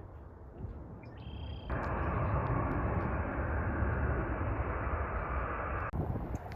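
Jet airliner engine noise, a steady dense rush that starts abruptly a little under two seconds in and cuts off just as abruptly near the end, over low outdoor background rumble.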